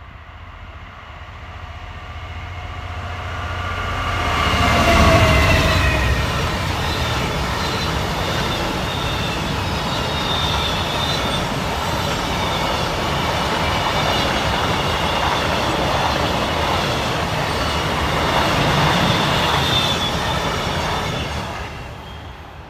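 A Class 66 diesel-electric locomotive, with its two-stroke V12 engine, approaches and passes at speed. Its engine note grows louder and drops in pitch as it goes by about five seconds in. A long rake of steel-train flat wagons then rumbles and clatters past for some fifteen seconds before fading away.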